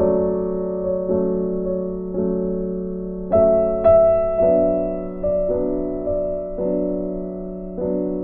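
Slow, gentle piano music: chords struck about once a second, each left to ring and fade.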